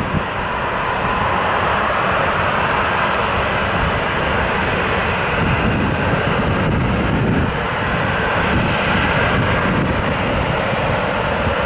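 The turbofan engines of an Embraer ERJ-145-family regional jet running as the plane lands and rolls out on the runway: a steady jet rush at an even level.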